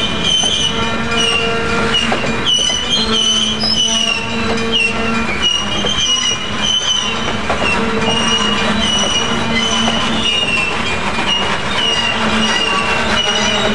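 Loaded freight-train flatcars rolling past close by, their steel wheels squealing on the rails in several wavering high-pitched tones. A few knocks from the wheels over the track can be heard partway through.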